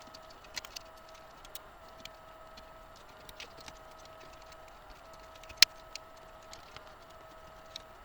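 Scattered light clicks and ticks of computer cables and plastic connectors being handled and routed, with one sharper click about five and a half seconds in, over a faint steady tone.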